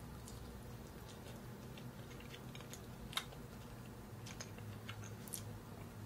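Faint, scattered soft clicks and ticks, irregular and not in a rhythm, over a steady low electrical hum.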